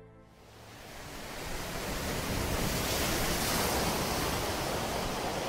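Steady rushing ambient noise with no music, fading in over the first two seconds and then holding steady.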